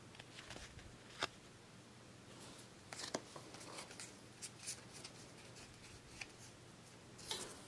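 Faint handling of Pokémon trading cards: scattered soft clicks and slides of card stock as the cards are sorted through, over a quiet room.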